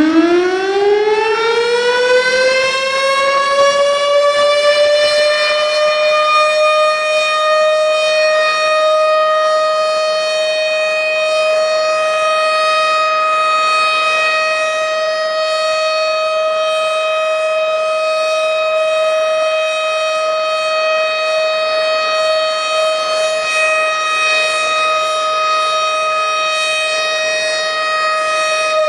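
Civil-defence warning siren winding up. Its pitch rises through the first five or six seconds, then it holds one loud, steady wailing tone.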